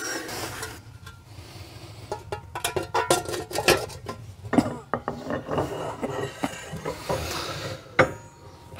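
Irregular metal clinks, knocks and scrapes as a van's rear half shaft is fed back through the backing plate into the axle housing and hub.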